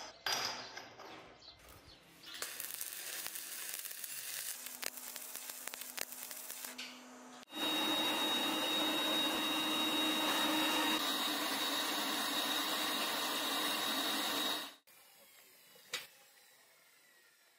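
A few light clinks of steel plates being stacked, then a forge burner running with a steady rushing hiss and a thin high whistle. The hiss cuts off abruptly about three seconds before the end.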